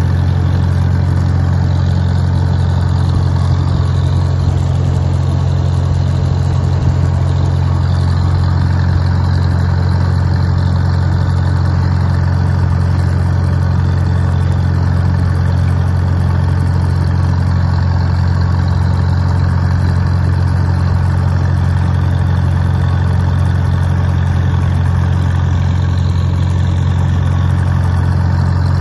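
1950 Farmall M tractor's four-cylinder engine running steadily at an even speed while the tractor drives, heard from the driver's seat close to the upright exhaust stack.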